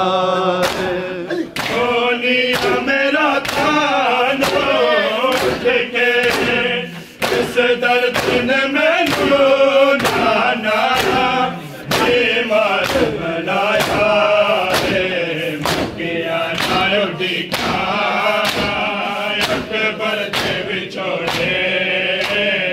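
A group of men chanting a Punjabi noha (Shia lament) in chorus, with the dull slaps of hands beating on bare chests (matam) keeping time, about two beats a second.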